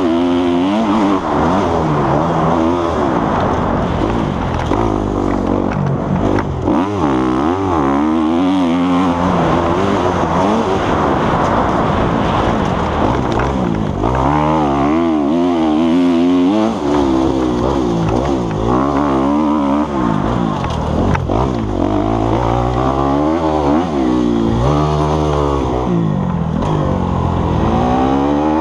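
Dirt bike engine at close range, its pitch rising and falling over and over as the throttle is opened and closed while riding.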